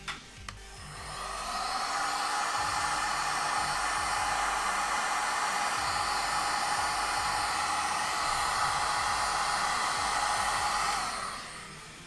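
Electric heat gun blowing steadily for about ten seconds while shrinking heat-shrink tubing over a soldered wire splice, winding down near the end. Two light clicks come just before it starts up.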